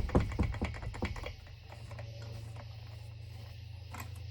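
A quick run of light metallic clicks and taps from small parts and tools being handled at a chainsaw's spark plug hole, fading out after about a second and a half, over a steady low hum.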